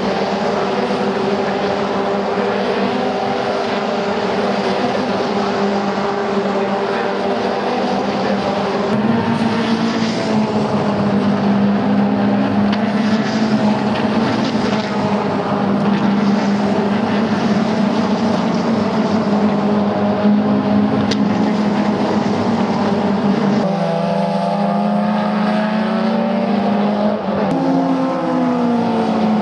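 Caterham Seven R300 Superlight race cars at speed, several engines running hard at once with steady high revs. Near the end, the engine pitch falls.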